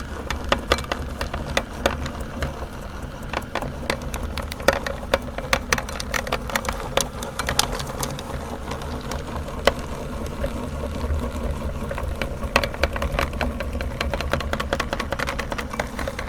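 Electric meat grinder motor running with a steady low hum, while a chocolate bar is crushed in the auger, giving many irregular sharp cracks and crunches throughout.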